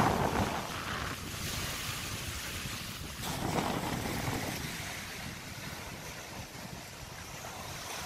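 Sea waves breaking and washing over a rocky pebble shore, swelling loudest at the start and again about three and a half seconds in, with wind rumbling on the microphone.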